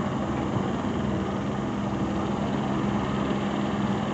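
Helicopter running while parked on the pad: a steady engine and rotor hum with a low steady tone.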